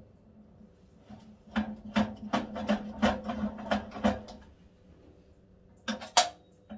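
Chinese lathe chuck being threaded onto the lathe spindle by hand: a quick run of metallic clicks and knocks, then two sharper knocks near the end.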